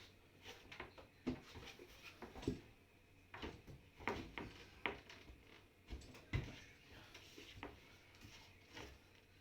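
Irregular clicks and knocks of a dishwasher's top cover panel being handled and set into its slots.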